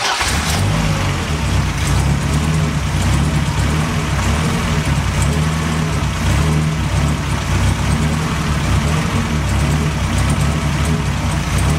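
BMW 2002's four-cylinder engine idling roughly, its low note wavering and uneven instead of steady. It cuts in suddenly at the start.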